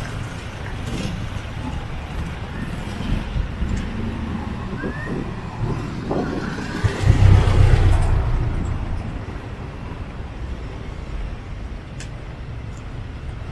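Street traffic: a passenger jeepney drives past close by, its engine rumble and road noise swelling to the loudest point about seven seconds in, then fading to a lower traffic hum.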